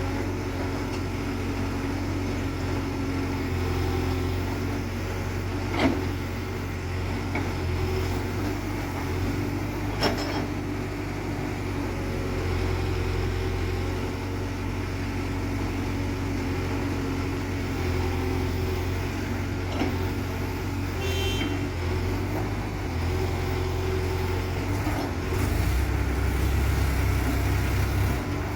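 Case 851EX backhoe loader's diesel engine running steadily with a low drone, with two sharp knocks about 6 and 10 seconds in. The drone grows a little louder near the end.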